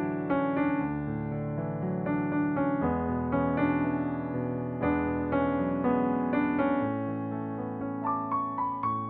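Background piano music: a gentle piece of notes and chords that ring on over one another, with a run of quicker notes near the end.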